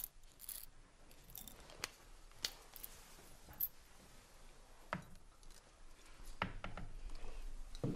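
Faint, scattered small clicks and taps of a pill bottle and a drinking glass being handled, with a soft rustling in the last couple of seconds.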